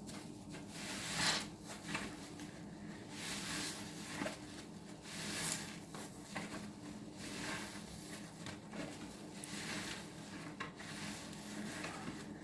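A green sponge soaked in dish-soap suds squeezed and kneaded by hand: repeated wet squelching swells, each about a second long, at an uneven pace.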